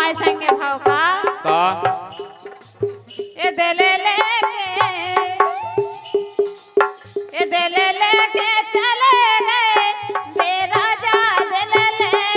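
Bundeli folk music: a woman sings a long, wavering, ornamented melody over a steady held note and a regular beat of hand-drum strokes.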